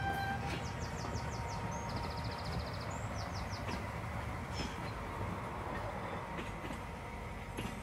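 A Class diesel locomotive engine running steadily with a low rumble. Bird chirps and trills sound above it in the first few seconds.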